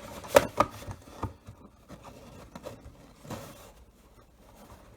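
Trading card and box packaging being handled: faint rubbing and scraping of card stock, with two sharp clicks in the first second and a few softer taps later.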